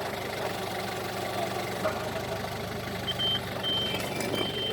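Engine of a lifting machine idling steadily, with three high electronic warning beeps in the last two seconds.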